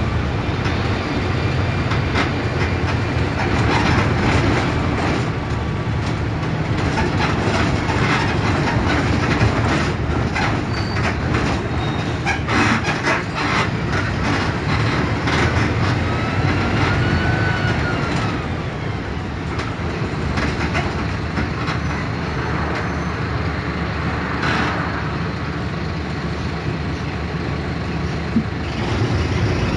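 Mercedes-Benz OF 1721 BlueTec 5 bus diesel engine running as the bus drives, with many rattles and knocks from the body over the road.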